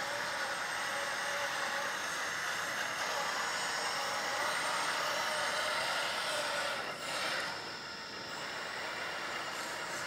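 Electric drive motors and hydraulic pump of a 1/14-scale metal RC hydraulic backhoe loader, whirring steadily as the machine drives and turns. The sound gets a little quieter for the last couple of seconds.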